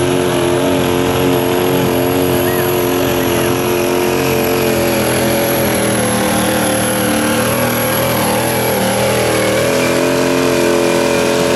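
Pro stock diesel pulling truck's turbocharged diesel engine held at full throttle under heavy load while pulling the sled. The revs sag slightly past the middle and climb back, with a steady high turbo whistle over the engine.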